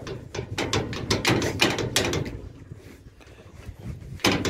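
Sliding steel bolt latch on a barred metal enclosure gate rattling and clanking as it is worked by hand. There is a quick run of knocks over the first two seconds and a loud clank near the end.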